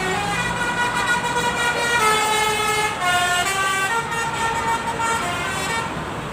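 Bus basuri (telolet) horn playing a melody of stepped notes, with several tones sounding together. It stops a little before the end, over the rumble of passing traffic.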